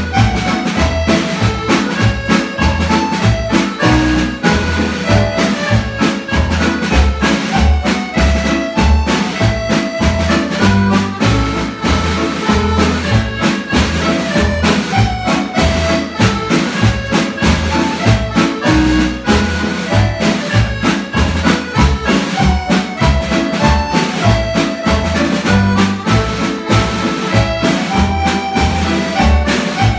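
Two piano accordions playing Scottish retreat pipe marches as a duet, the melody in held reedy notes over a steady bass beat.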